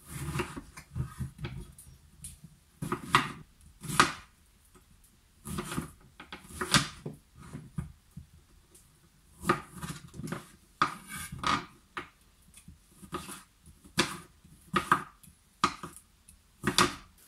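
Chef's knife slicing lemons and a lime on a wooden cutting board: cut after cut at an uneven pace of about one a second, with short pauses, each stroke ending in a knock of the blade on the board.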